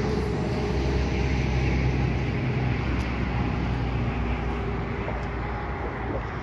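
Steady rumble and hum of road traffic on the nearby motorway, easing slightly near the end.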